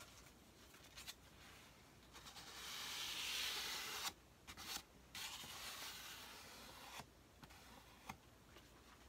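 A hand rubbing across the painted surface of an XPS foam shelf in two strokes, the first the louder, with a few light taps in between.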